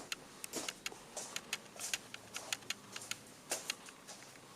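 Faint, irregular light clicks and small rattles of hard objects being handled, a few to several a second.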